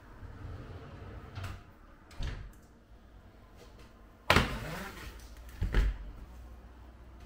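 A few separate knocks and bumps of things being handled and set down, the loudest and most ringing about four seconds in, with another shortly after.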